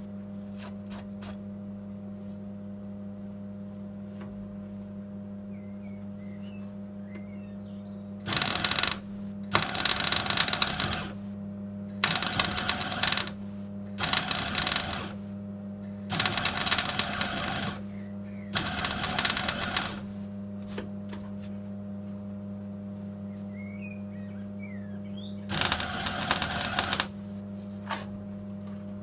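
MIG welder laying short stitch welds along a heel board seam on a classic Mini's floor, the arc crackling in about seven bursts of a second or so each, starting about eight seconds in. A steady low hum runs underneath.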